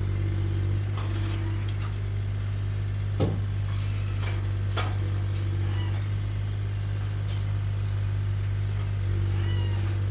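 Engine idling steadily with a low, even hum, broken by a few sharp knocks about three and five seconds in.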